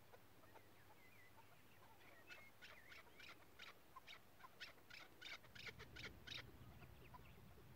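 Chukar partridge calling: a faint run of short, sharp notes, about three a second, starting about two seconds in and growing louder before stopping about a second before the end.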